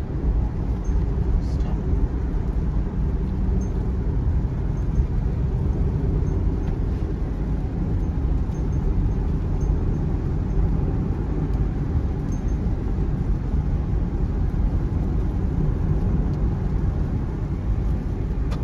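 Steady low rumble of a car's tyres and engine cruising on a wet highway, heard inside the cabin.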